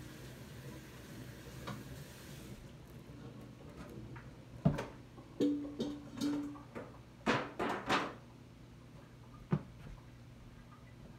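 Cooking utensils knocking and clanking against a pot: a cluster of sharp strikes, one ringing briefly with a short tone, then a single knock. A faint hiss stops about two and a half seconds in.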